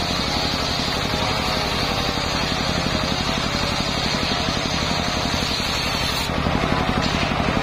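Engine-driven circular sawmill blade ripping a long mahogany beam: the engine runs steadily with a rapid, even pulse beneath the dense noise of the blade cutting and throwing sawdust. The sound shifts slightly a little over six seconds in.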